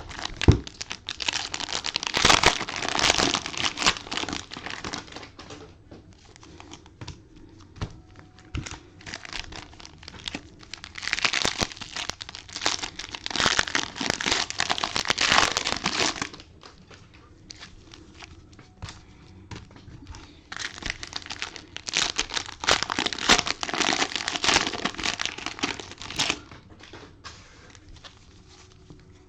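Plastic wrapping on trading-card packs crinkling and tearing as it is handled, in three bouts of a few seconds each with quieter rustling between.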